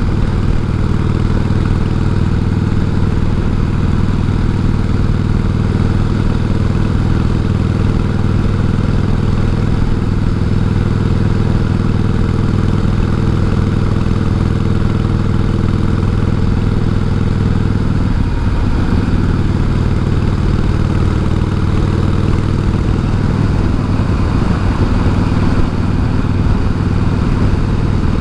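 1988 Harley-Davidson Heritage Softail's 1340 cc Evolution V-twin running steadily under way, with wind noise in a helmet microphone. The engine note briefly shifts about two-thirds of the way through.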